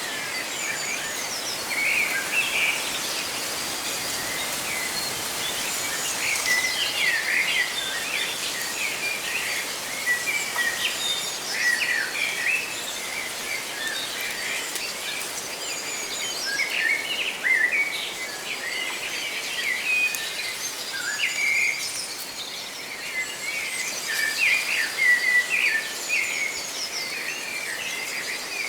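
Several birds chirping and singing in short, overlapping calls and trills, over a steady rustle of leaves.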